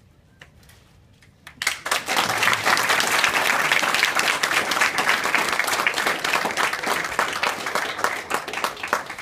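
A group of people clapping and applauding, starting suddenly about a second and a half in and going on steadily.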